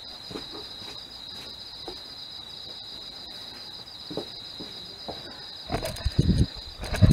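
Night insects chirring steadily at a high pitch. Near the end come several dull thumps and rumbles of the camera being handled and moved.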